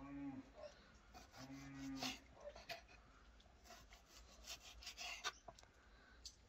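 A goat browsing on leafy plants: crisp snaps, tearing and chewing clicks of leaves and stems. Two short, low, steady animal calls come at the very start and about a second and a half in.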